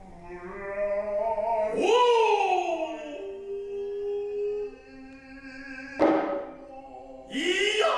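Noh music: voices in long, drawn-out tones that swoop up and slide down in pitch, with a single sharp drum stroke about six seconds in and another rising vocal swoop near the end.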